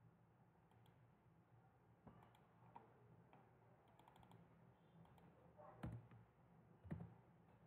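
Faint, scattered computer mouse and keyboard clicks over a quiet room hum, with a quick run of key clicks about four seconds in and two louder knocks in the last two seconds.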